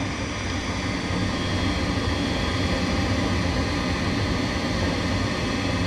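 Gas furnace's draft inducer fan running steadily with a low hum, during the ignition sequence before the gas valve opens.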